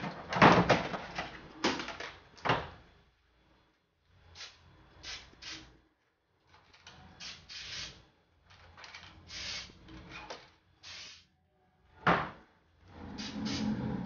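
Aerosol can of baking spray hissing in a series of short spurts, with a longer spray near the end, as mold release is sprayed on.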